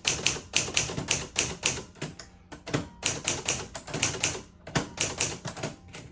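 Typewriter being typed on in quick runs of key strikes, about five or six a second, with two short pauses: test-typing to check the type alignment.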